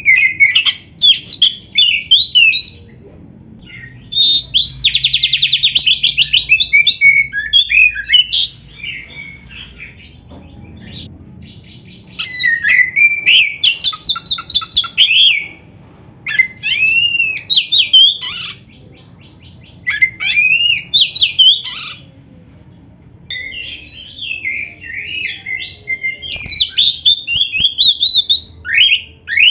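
Oriental magpie-robin (black-breasted 'kacer') in full song ('gacor'), with its phrases filled with imitations of other birds ('full isian'). It is a loud, varied mix of whistled slurs, fast trills and harsh buzzy notes, delivered in bursts with short pauses between them.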